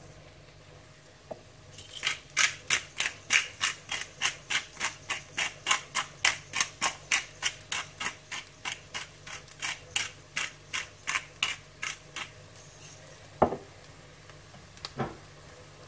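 Black pepper grinder being twisted back and forth, cracking peppercorns in a steady run of crisp, crunchy strokes about three or four a second for some ten seconds, followed by two sharp knocks near the end.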